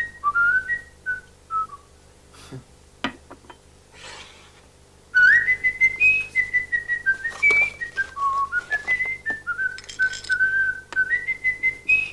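A person whistling a tune, one clear note at a time stepping up and down. It breaks off after about two seconds, with a few clicks and a short rustle in the gap, and starts again about five seconds in with an upward slide into a longer, louder phrase.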